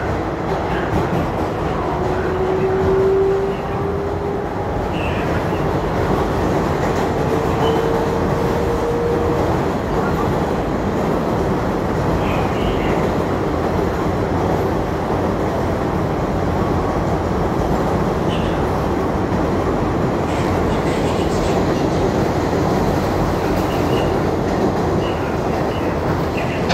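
New York City 7 subway train running between stations, heard from inside the car: a steady rumble and rattle of the wheels on the rails, with a faint rising whine in the first several seconds.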